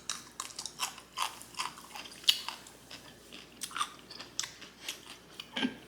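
Someone chewing crunchy pickled radish, with irregular crisp crunches a few times each second.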